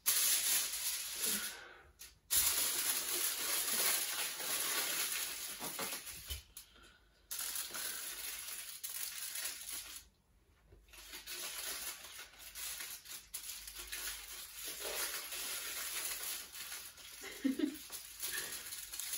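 Kitchen aluminium foil crinkling and crackling as a sheet is laid over a head and pressed and moulded down by hand, in stretches with a few short pauses.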